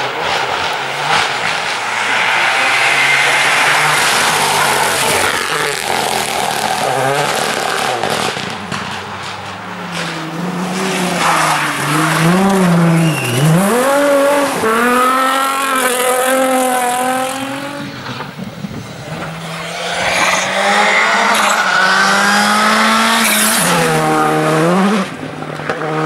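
Rally car engines revving hard as the cars race past on a tarmac stage, the pitch falling and climbing again and again with braking and gear changes. In the middle a Nissan 350Z's V6 dips low, then revs up through the gears as it powers out of a hairpin. Near the end another car's engine swoops down and back up.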